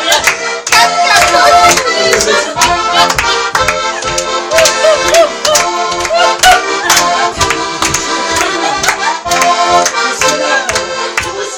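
Button accordion playing a fast Goral folk dance tune, chords held over a quick steady beat.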